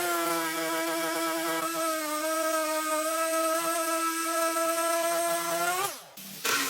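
Electric power tool motor running with a steady whine, then spinning down with falling pitch about six seconds in.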